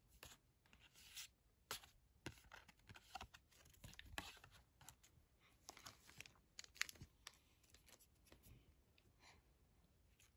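Faint rustling and crackling of Pokémon trading cards being handled and laid down by hand: many short scrapes and clicks, thinning out in the last couple of seconds.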